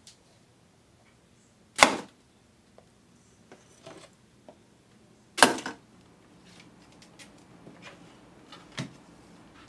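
Two sharp clattering knocks about three and a half seconds apart, as small metal objects drop into a round metal can holding crumpled film strips, followed by lighter clicks and rustling.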